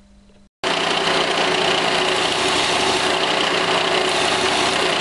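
Belt sander running, with a small stainless steel pin pressed by hand against the moving belt and ground to size. It starts abruptly about half a second in and stays steady and loud.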